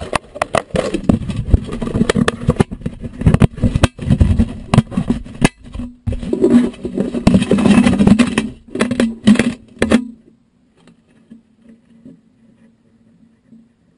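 Handling noise on a GoPro Hero2's clear plastic waterproof housing, picked up by the camera inside it: dense clicks, knocks and rubbing as hands close the housing and move the camera. It stops suddenly about ten seconds in as the camera comes to rest on gravel, leaving only a faint low hum and a few small ticks.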